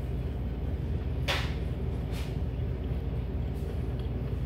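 Steady low hum of room tone, with two short crisp crackles about a second in and again a second later.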